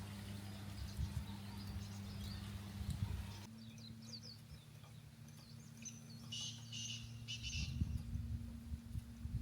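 Small birds chirping faintly outdoors: a few short chirps about four seconds in and a denser run of song from about six to seven and a half seconds, over a steady low hum.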